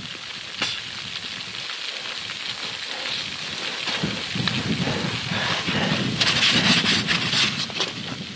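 Wind and blowing snow rushing over the microphone on a steep snow face, growing stronger about four seconds in, with a sharp knock from gear or clothing early on.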